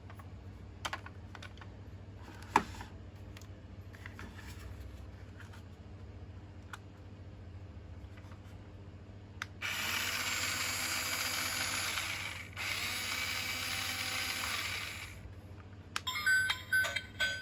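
A toy RC truck's small electric motor and plastic gearbox whirring in two bursts of a few seconds each, after some light plastic clicks. Near the end, a toy's electronic beeping tune starts.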